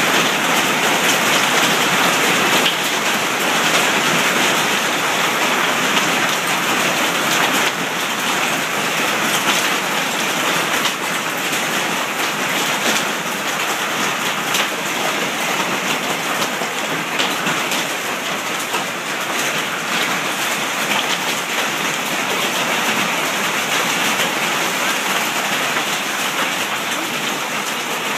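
Quarter-size hailstones pelting a deck: a loud, dense, steady patter of countless small impacts.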